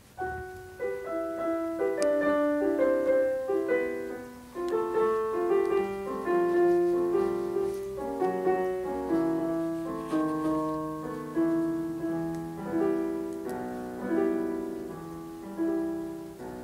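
Solo piano playing the introduction to a romance, a flowing line of struck notes and chords that ring on and overlap.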